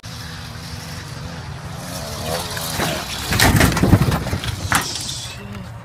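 Wind and handling noise rumbling on a handheld phone's microphone while it is swung about. A louder flurry of knocks and thumps comes in the middle.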